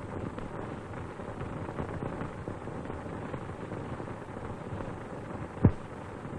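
Storm sound effect on an old film soundtrack: a steady rushing of wind and rain, with one short sharp thump near the end.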